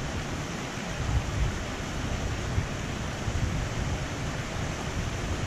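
Small waterfall and stream rushing steadily over rocks, with wind buffeting the microphone in low, uneven gusts.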